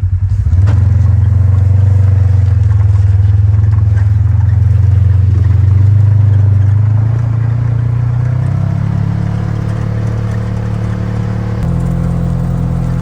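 A heavily loaded vehicle's engine pulling away. It revs up about half a second in and holds steady, then eases off after about seven seconds, and its pitch steps up twice in the last few seconds.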